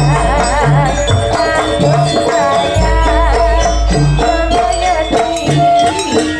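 Javanese jaranan ensemble music: a wavering, ornamented high melody over a repeating low pitched beat, deep sustained bass tones and jingling rattles.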